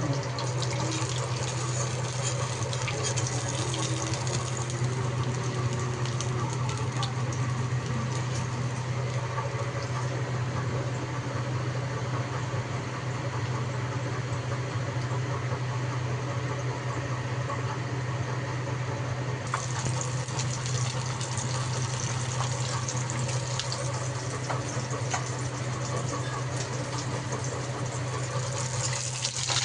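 Steady low hum of a small motor running, with faint clicks and rustling over it.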